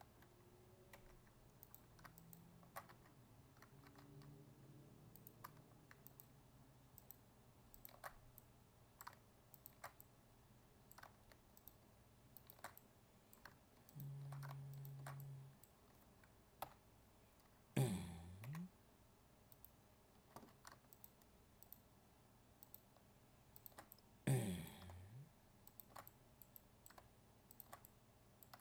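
Faint, irregular clicking of a computer mouse and keyboard keys over a low steady hum. Twice, a louder brief sound stands out.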